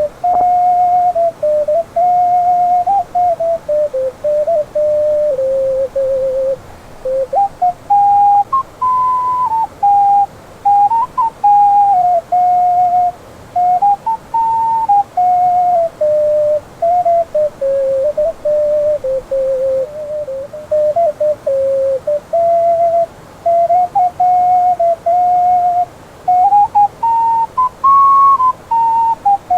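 Ocarina playing a slow melody of pure, whistle-like held notes, with short breaks between the notes.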